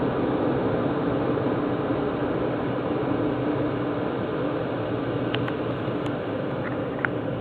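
Automatic car wash machine running with a steady whirring rush and a low hum, with a few light clicks and squeaks in the last couple of seconds.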